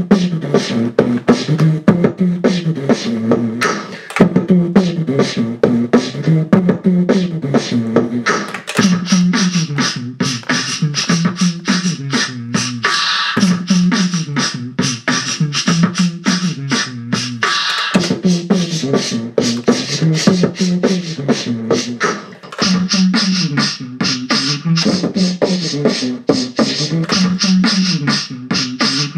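Live-looped vocal beatboxing by two beatboxers: layered mouth-made kick, snare and click sounds over a pitched low vocal bass line that repeats about every two seconds, built up on loop pedals.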